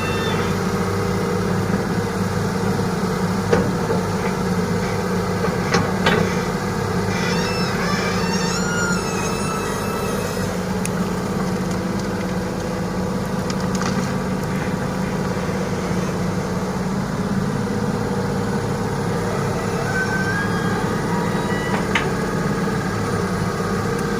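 Large excavator's diesel engine running steadily, with a few sharp metallic knocks a few seconds in, as it digs and loads river sand.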